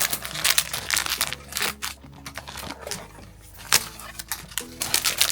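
Blind-box packaging being handled: a run of quick, sharp plastic crinkles and clicks, with a single louder click a little past the middle, over light background music.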